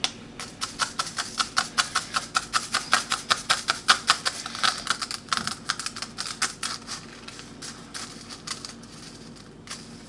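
Dry instant rice poured through a small plastic funnel into a balloon, the grains clicking and ticking against the funnel in a fast, uneven run of about five or six clicks a second. The clicking thins out after about six seconds as the flow slows.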